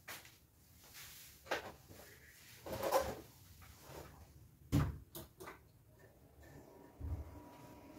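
Handling sounds of a person settling in at a desk: scattered knocks and clicks, a rustle about three seconds in, and two dull thumps, the louder one midway. A faint steady hum comes in near the end.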